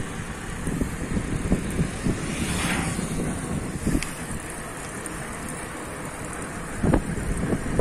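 Wind buffeting the microphone of a bicycle riding along a paved road, over a steady low rumble of the tyres on the tarmac, with a few faint knocks.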